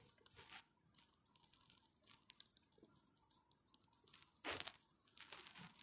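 Near silence broken by faint rustles and small clicks of pillow and bedding moving against the phone's microphone, with a louder rustle about four and a half seconds in.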